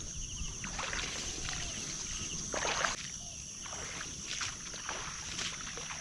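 Soft, irregular water splashes and sloshing, a few strokes spaced a second or two apart, over a steady high-pitched insect buzz.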